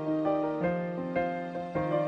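Slow, gentle instrumental background music: a melody of notes struck one after another, each fading away.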